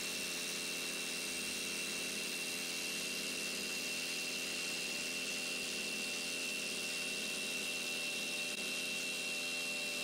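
Hilti TE 4-22 cordless SDS hammer drill boring a 5/8-inch hole into concrete, running steadily under load with its vacuum dust extraction going, with a steady high whine over the motor.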